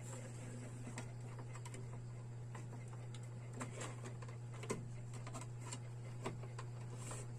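Scattered faint clicks and taps of hands handling plastic electrical boxes, flexible plastic conduit and wire as the wire is threaded through, over a steady low hum.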